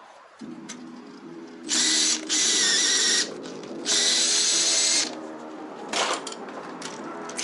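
Power drill running in two bursts of about one and a half seconds and one second, over a steady low motor hum, with a few short clicks near the end.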